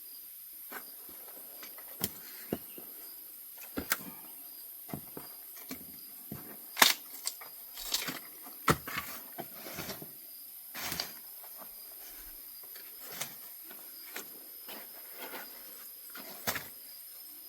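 Irregular close crunches, snaps and knocks, loudest about seven and nine seconds in, over a faint steady high-pitched insect drone.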